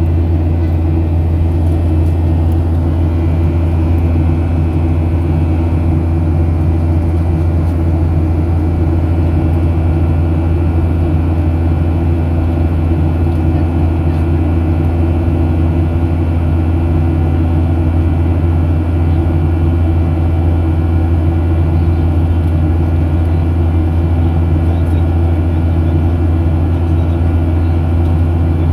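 Boeing 737-700's CFM56-7B turbofan engines and airflow heard inside the cabin in flight: a steady, unchanging low drone with steady tones above it.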